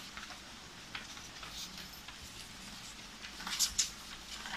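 Faint rustling and small handling clicks in a small room, with a brief louder rustle about three and a half seconds in.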